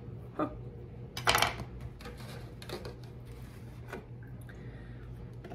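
Kitchen things being handled on a countertop: a few short clacks and knocks as a knife and a plastic measuring cup are set down, the loudest about a second in, over a low steady hum.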